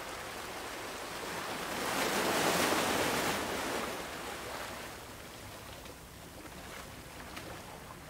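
Ocean surf: a wave washes in, swelling to its loudest about two to three seconds in, then ebbing away to a softer hiss of water.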